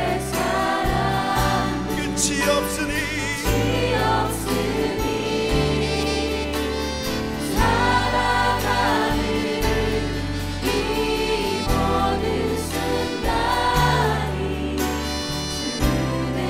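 Live worship band playing with voices singing, an Alleva-Coppolo LG5 five-string electric bass holding long low notes that change every second or two underneath.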